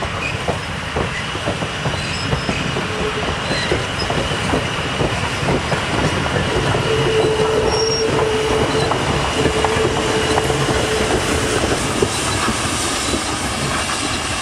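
Virginia & Truckee train behind steam locomotive No. 29 moving along the track, wheels clicking over the rails with a thin high squeal throughout. A lower, steady squeal joins from about seven to eleven seconds in.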